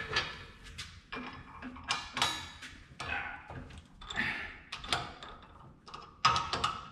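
Irregular metal clinks, taps and knocks from handling a large steel pipe on a drill press table, with the drill press motor not running. A louder ringing clink comes about six seconds in.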